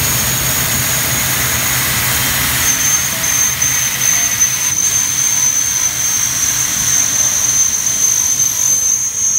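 JIH-AUTO18DTS automatic drilling-tapping-sawing machine running, its spindles drilling into a metal profile: a steady loud hiss with a thin high whine over a faint low hum.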